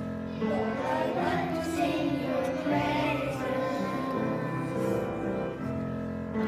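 Young children singing a worship song together over a steady instrumental accompaniment.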